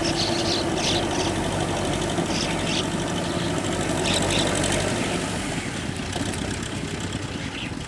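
TAFE 5900 DI tractor's diesel engine running steadily under load while it pulls a rotary tiller churning through flooded paddy mud. The sound eases off a little near the end.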